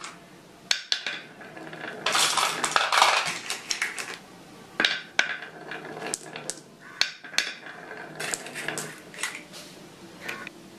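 Glass marbles rolling down a carved wooden wavy-groove track and clacking against one another as they pile up behind a stopper. The clicks come in a dense rattling run about two seconds in, then scattered, with another cluster near the end.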